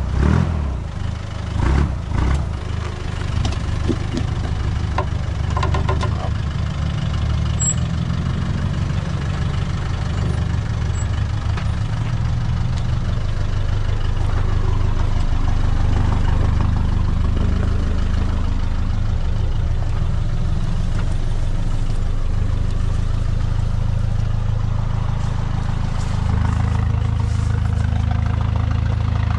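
Troller 4x4's diesel engine running with a steady low drone, with a few sharp knocks and rattles in the first few seconds.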